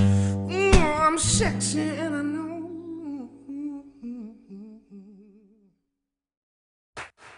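Background music: a song ending on held notes with a wavering vibrato over sustained low chords, fading out to silence about six seconds in. A new track with a regular beat starts near the end.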